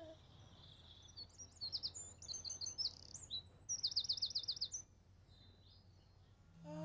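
Birdsong: a run of high chirps and whistles, with a fast trill of about nine notes a second near four seconds in, over a faint steady low hum.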